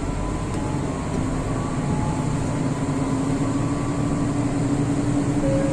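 Diesel railcar engine heard from inside the cabin, revving up as the train starts to pull away from a station. It is a steady drone that rises slightly in pitch and grows a little louder.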